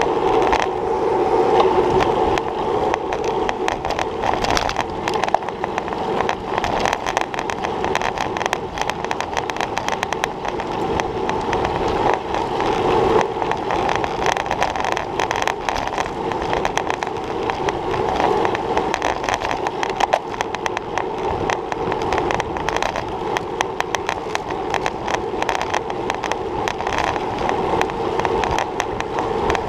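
Road bike rolling at speed on asphalt in a race pack, heard through a handlebar-mounted action camera: steady tyre and wind noise with a constant hum, broken by frequent small knocks and rattles from road vibration.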